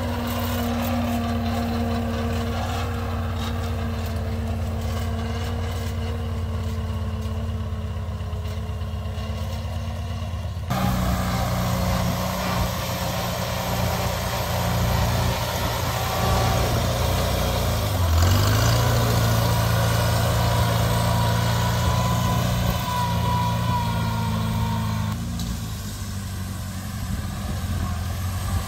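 A Farmall Cub's four-cylinder flathead engine runs steadily as the tractor drives, heard in a few separate takes whose sound changes abruptly. About two-thirds of the way through, the engine's pitch briefly drops and picks back up.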